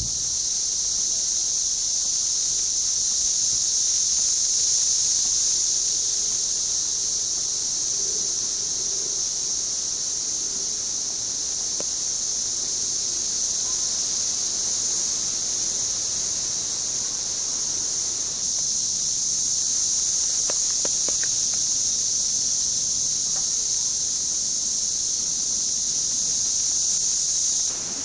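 Dense chorus of 17-year periodical cicadas, Magicicada cassini of Brood IV: a steady, high-pitched buzzing drone without a break, swelling and easing slightly in level.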